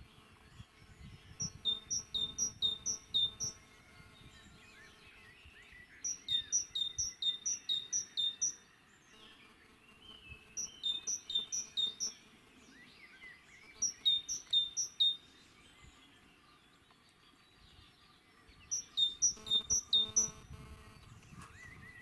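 A small songbird singing: five short bursts of five to seven quick, identical high notes, each note falling in pitch, with pauses of a few seconds between bursts. Fainter chirps of other birds are in the background.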